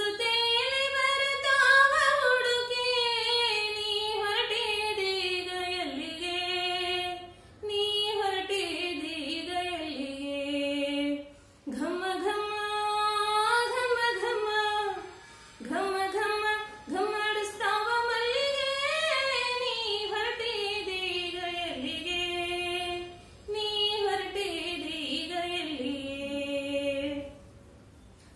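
A woman singing a Kannada bhavageete solo and unaccompanied, in long, ornamented phrases with short breaks for breath between them.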